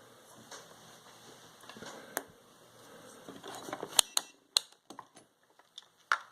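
Scattered sharp clicks and light taps of small parts being handled, with the two loudest clicks about four seconds in and half a second later.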